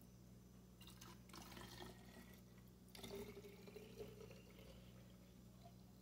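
Faint sound of lime caipirinha being poured from a plastic jug into a small plastic bottle, in two spells.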